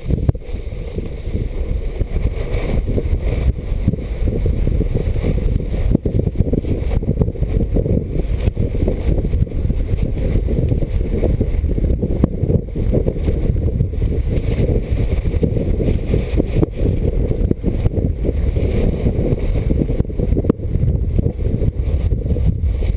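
Wind rushing and buffeting over a GoPro's microphone while skiing fast downhill, with the hiss of skis running over packed snow beneath it.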